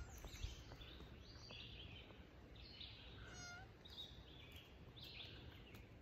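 Faint songbird song in a leafy forest: short chirped phrases repeating about once a second, with one brief whistled note about halfway through.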